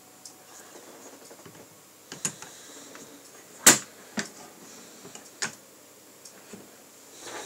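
A few sharp clicks and knocks from handling a metal LED light bar, the loudest about three and a half seconds in.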